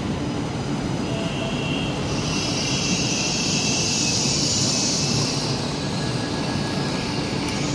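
A high-speed train standing at the platform, its onboard equipment running with a steady mechanical noise. A hiss comes in about two seconds in and fades a few seconds later.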